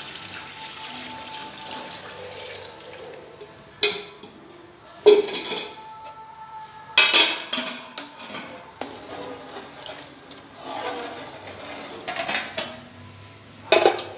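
Water poured from a pot into an aluminium cooking pot of chicken masala, then sharp metal clanks and clatter of a steel ladle and an aluminium lid against the pot: four loud knocks, the last near the end.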